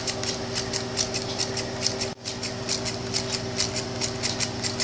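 Homemade single-cylinder solenoid engine running: its iron-nail plunger and crankshaft contact switch make a rapid, even clicking, several clicks a second, over a steady electrical hum.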